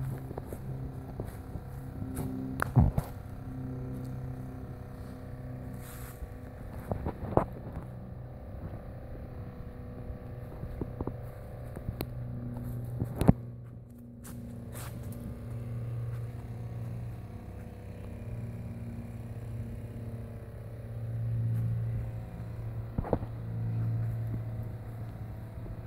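Small engine of a roof-cleaning spray rig running steadily at one pitch, swelling and fading in loudness, while the cleaning solution is sprayed. A few sharp knocks cut across it, the loudest about three seconds and about thirteen seconds in.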